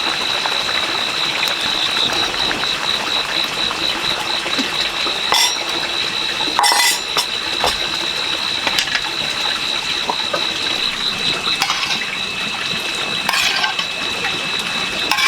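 A steady high-pitched drone that pulses rapidly, with a few short clinks and knocks scattered through it.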